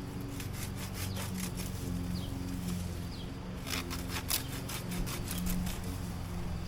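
Lawn mower running steadily with a droning hum, with scattered crackling clicks over it, thickest about halfway through.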